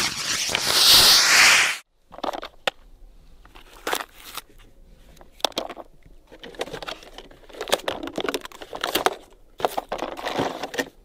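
Firework rockets burning on the roof of a toy car with a loud, even hiss that cuts off suddenly about two seconds in. After that come scattered clicks, scrapes and crinkles of hands handling a plastic toy car on asphalt.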